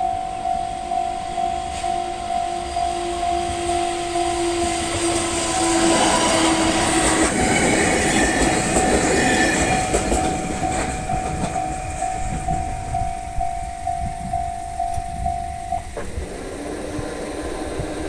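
Japanese level-crossing warning bell ringing in a steady pulse about twice a second while a two-car E721-500 series electric train passes slowly over the crossing. The train's running noise is loudest from about six to eleven seconds in. The bell cuts off suddenly about two seconds before the end as the crossing clears.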